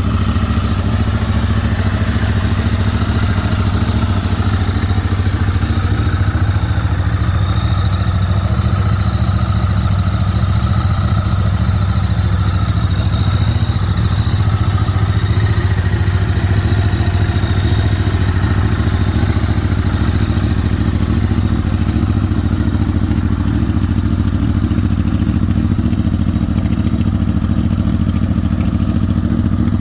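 Supercharged 2006 Honda VFR800 Interceptor's V4 engine idling steadily. It is not the typical VFR sound.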